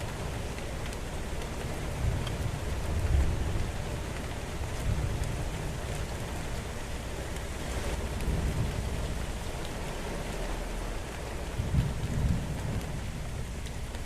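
Steady rain falling in a thunderstorm, with low rumbles of thunder swelling up about three seconds in, around eight seconds and again near twelve seconds.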